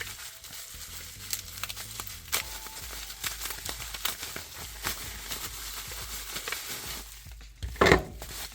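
Plastic packaging crinkling and rustling with many small clicks as items are unpacked, with one louder knock near the end as something is set down.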